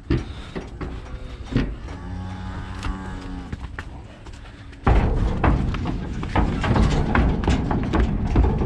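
A heifer moos once, a long, steady, low call about two seconds in. Near the middle the sound jumps to a much louder rumbling din with scattered knocks and clatter that runs on.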